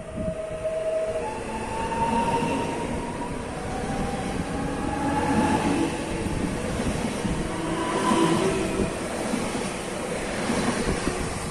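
A Koleje Mazowieckie electric multiple unit pulling into a station platform and slowing as it passes, its motors whining in several tones that shift in pitch over the rumble of wheels on rails. It grows louder as the train draws alongside.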